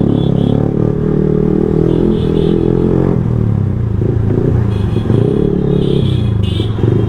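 Yamaha R15M single-cylinder motorcycle engine running loudly through its exhaust while riding, its pitch shifting a little as the throttle changes.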